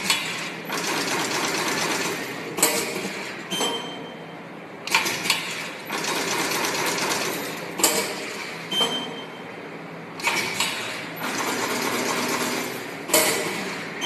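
Automatic wire-stripping and terminal-crimping machine working through its cycle: a sharp crimp stroke about every two and a half to three seconds, each followed by a steady mechanical run of a second or two.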